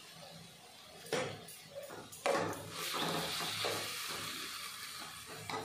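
A spatula knocking twice against a non-stick kadai, then scraping and stirring through frying masala, with a light sizzle.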